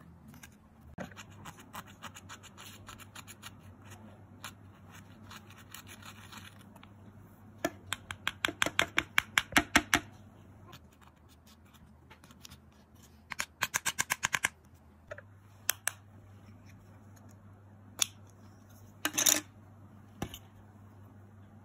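Quick scratching strokes of a stick digging into pressed powder makeup in a palette, about six strokes a second, in two bursts. These are followed by a few single sharp clicks and taps of the plastic compacts.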